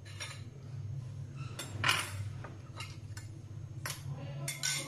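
A metal utensil clinking and scraping against a ceramic plate as a slice of cake is served onto it: several separate clinks, the loudest about two seconds in, over a steady low hum.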